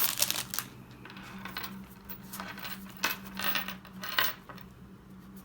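Pokémon trading cards being flicked through by hand, a handful of short scrapes and clicks spaced through, over a faint steady low hum.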